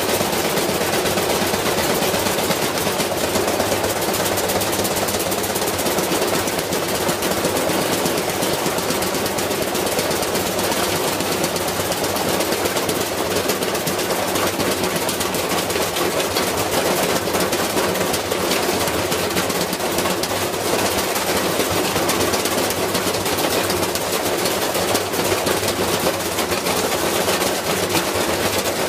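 Washing machine running with a brick loose in its drum: the brick hammers against the drum and tub in a rapid, continuous clatter that never lets up.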